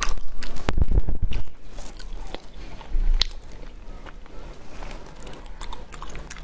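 A person chewing a mouthful of spicy instant noodles close to the microphone, loudest in the first second and a half and again briefly about three seconds in, with small wet clicks in between.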